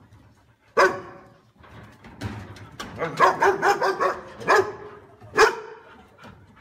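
Dog barking: one sharp bark about a second in, a quick run of barks around three to four seconds in, then two more single barks near the end.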